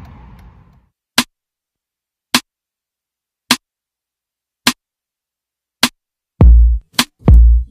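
Background music with an electronic beat coming in: five sharp, evenly spaced clicks about a second apart, then heavy bass drum hits starting a little after six seconds in. The low hum of the car interior fades out in the first second.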